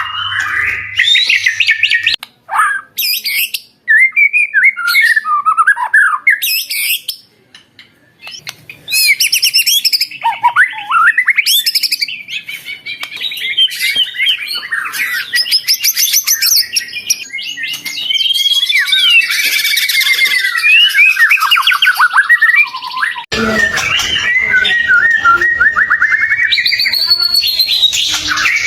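A white-rumped shama (murai batu) in full, vigorous song: rapid, varied whistled phrases that glide up and down, with chattering notes, pausing briefly about seven seconds in. About 23 seconds in, a noisier hiss joins underneath the song.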